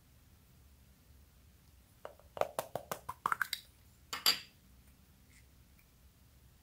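Small plastic clicks and rattles as a corn-shaped plastic toy container is handled and opened: a quick run of about ten clicks over a second and a half, then one louder click.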